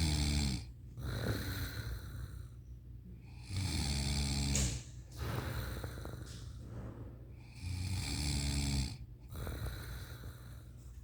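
A sleeping woman snoring heavily: three loud, low, rattling snores about four seconds apart, each about a second long, with a softer breath between them.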